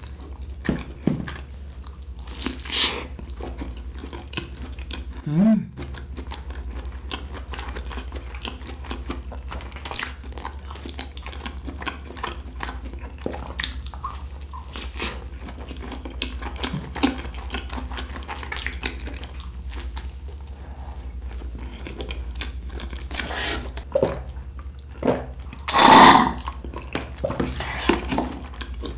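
A person chewing and biting food close to the microphone, with scattered small clicks and taps, over a steady low hum. A louder burst of noise comes a few seconds before the end.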